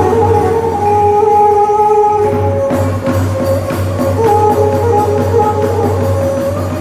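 Khmer traditional ngũ âm (pinpeat) ensemble music: a held, wavering melody line over a steady low drum beat.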